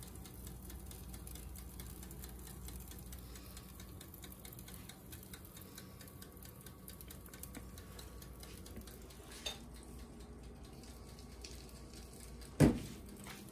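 Turkey meatballs frying in a pan: a faint, steady crackle of many small pops. A single sharp knock sounds near the end, with a lighter one about two-thirds of the way in.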